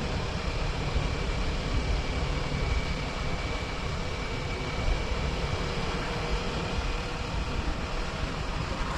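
Kawasaki Ninja 400's parallel-twin engine running at a steady cruise, mixed with wind and road noise.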